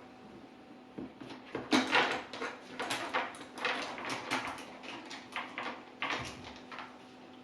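Electric chainsaw's guide bar and chain being handled and fitted to the body: a run of irregular clicks, clinks and knocks of metal and plastic, loudest about two seconds in.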